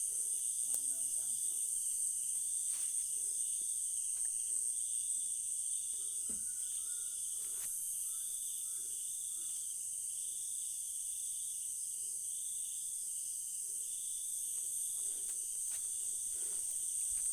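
Night insects calling: a steady high-pitched drone with a lower pulsing chirp repeating about once a second, and a few faint clicks.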